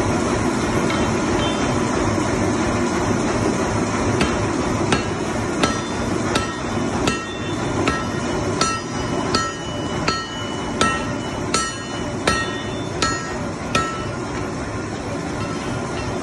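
Hand hammer striking a red-hot axe-head blank held in tongs on an anvil. The blows come evenly about every three-quarters of a second from about four seconds in, each with a metallic ring, over a loud steady rushing noise.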